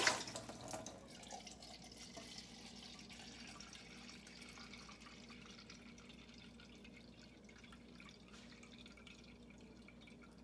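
Kitchen tap running a thin stream of water into a plastic measuring cup held in the sink, a steady hiss that slowly fades. A short loud knock right at the start, as a steel pot is handled.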